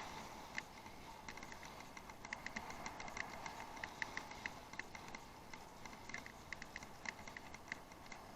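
Bicycle on an off-road ride making light, irregular ticking and clicking several times a second over a faint hiss.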